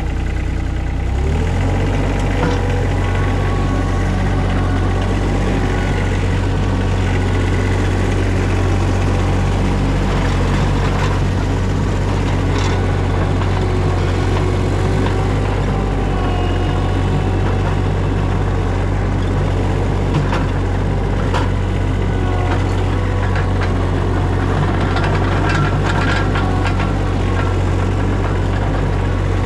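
Engine running steadily with a deep, even hum that shifts to a new pitch about a second in, with a few faint ticks over it.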